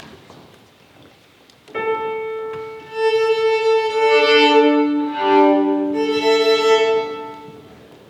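Violin playing long held notes with piano accompaniment. The music enters about two seconds in, swells, and dies away near the end.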